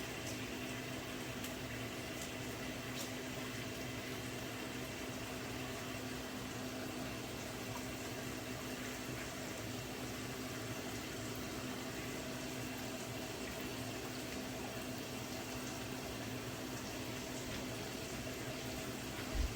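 Steady hum with an even hiss, unchanging throughout, with a single short knock near the end.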